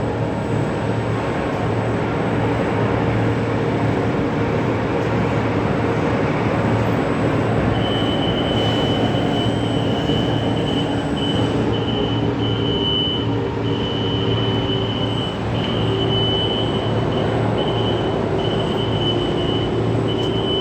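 CNC machine running while it cuts notches into a steel rolling-mill roll for 25 mm TMT rebar: a loud, steady mechanical noise with a constant hum. About eight seconds in, a high-pitched whistle comes in and keeps stopping and starting.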